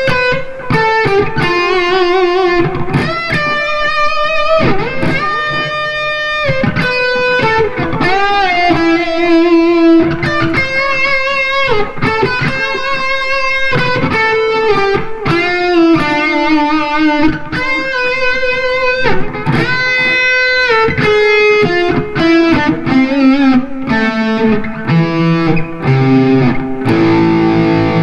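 Replica Gibson Les Paul Custom electric guitar on its bridge pickup, played through a Marshall MG100HFX head and 4x12 cabinet. It plays a lead line of single sustained notes, with string bends and vibrato, that works down in pitch. It is being played to show the bridge pickup's tone after a full setup.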